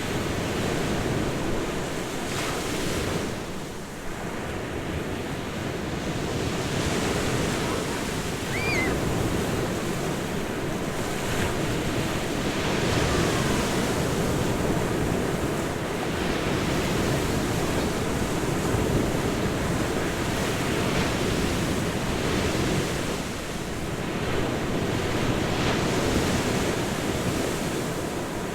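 Ocean waves breaking and washing in: a continuous rushing wash that swells and eases every few seconds.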